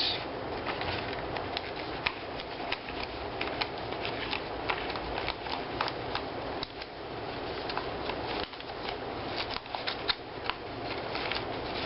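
Sheet of paper being handled and creased, with irregular crinkles and crackles.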